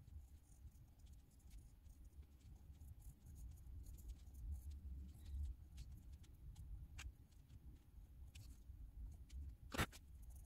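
Faint scratching and light ticks of a coloured pencil on paper over a low steady rumble, with one sharper tap near the end.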